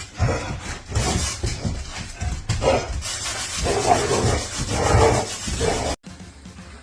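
A dog making several short vocal sounds over rubbing and scuffing noise, cut off abruptly about six seconds in.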